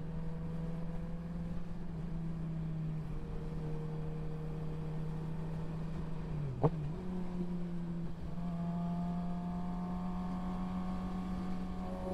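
Sportbike engine running at steady highway cruise under wind noise. About two-thirds through there is a short click and a brief dip in the engine note, and after that the note rises slowly as the bike accelerates.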